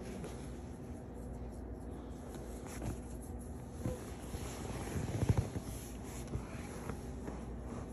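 Pit bull puppy sucking and chewing on a fabric blanket, with soft mouthing, snuffling and cloth rustling, and a short louder burst about five seconds in.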